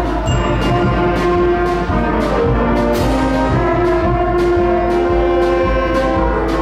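A school concert band playing: brass holding sustained chords over regular drum and cymbal strokes, with a crash of the cymbals about three seconds in.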